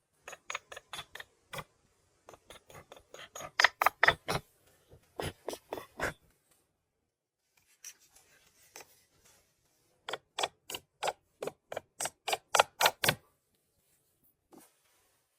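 Rapid series of sharp knocks, about four or five a second, in two runs separated by a pause of a few seconds; the strokes grow louder toward the end of each run.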